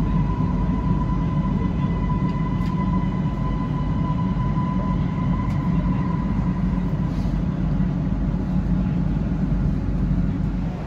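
Siemens Inspiro metro train running, heard from inside the car: a steady low rumble with a steady high whine that fades out about six seconds in.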